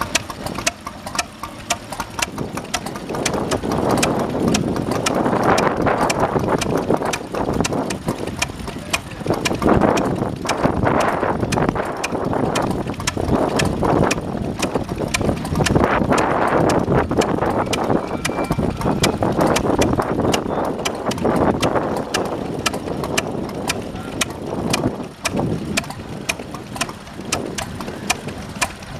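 Vintage stationary engine running, with a steady, rapid beat of sharp exhaust knocks, and people talking in the background.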